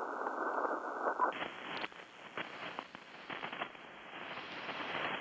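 Icom IC-7200 transceiver's speaker hissing with band noise and static crackles. About a second in there is a short beep as the mode switches from CW to lower sideband, and the hiss widens and brightens as the wider sideband filter opens.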